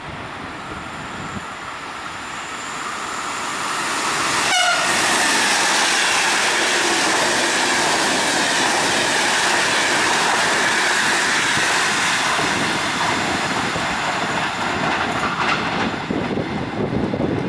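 Passenger express hauled by a Siemens Taurus (ES64U4) electric locomotive passing through a station at speed. The sound grows as the train arrives, then holds as a steady loud rush of coaches and wheels on the rails, easing slightly near the end.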